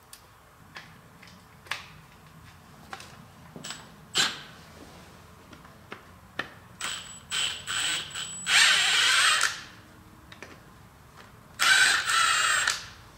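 Cordless Milwaukee FUEL power tool on bolts on a boring mill head: light metal clicks and knocks of handling, then a few short bursts and two loud runs of about a second each, the first about two-thirds of the way in and the second near the end, with a thin high whine.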